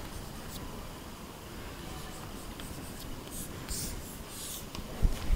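Chalk scratching on a blackboard as numbers are written: a few short scratchy strokes over a low steady hiss, then a low thump near the end.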